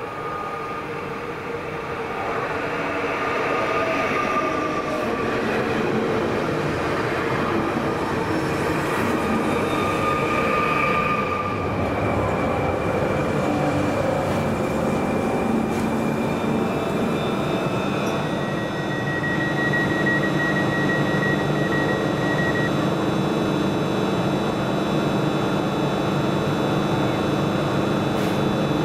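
A Pesa Elf 2 (22WEd) electric multiple unit pulls in along the platform and slows to a halt, with rolling noise and steady whining tones from its drive and brakes. About two-thirds of the way through, a steady high tone and a low hum start over the train sound.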